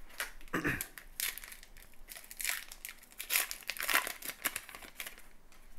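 Foil trading-card pack wrapper (Topps Gypsy Queen) being pulled from the box and torn open at its crimped seam, giving a run of short, crisp crinkles and crackles.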